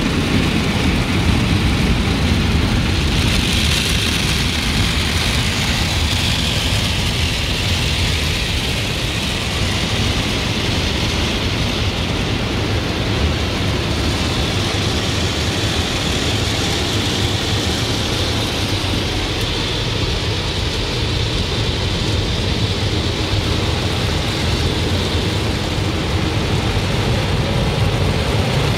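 Automatic car wash heard from inside the car: rotating brushes scrubbing and water spraying against the windows and body. It makes a steady, loud rumble and hiss with no break.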